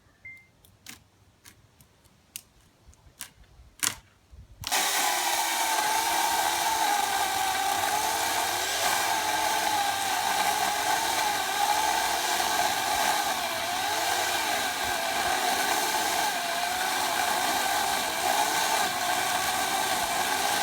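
A few sharp clicks, then a power tool's motor starts suddenly about four and a half seconds in and runs steadily at high speed, its pitch wavering slightly as the load changes.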